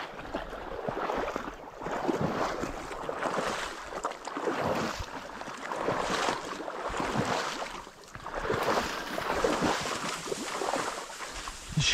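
Rustling and swishing of tall marsh grass as someone walks through it, swelling and fading about once a second with the steps.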